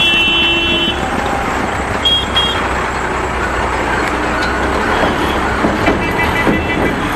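Road traffic at a level crossing with vehicle horns: a long honk at the start, two short high toots about two seconds in, and another honk near the end. Under it runs the low rumble of a heavy truck's engine passing close by.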